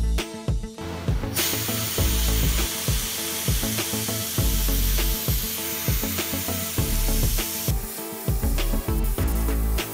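A hand-held compressed-air sandblasting gun hisses steadily as it blasts rust off the steel shell of a car's brake booster. The hiss starts shortly after the beginning and cuts off near the end, over background music with a steady beat.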